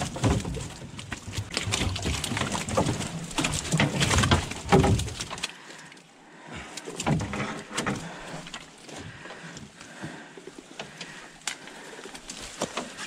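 Catfish flopping in a hoop net in the boat, with wet slaps and the net's mesh and hoops rattling and rustling as it is handled. Heaviest for the first five seconds or so, then quieter scattered knocks and handling.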